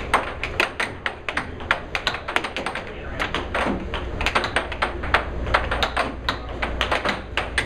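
Air hockey puck clacking in rapid, irregular clicks against a player's mallet and the table's rails as he works it back and forth on his own side, over the steady low hum of the air table's blower.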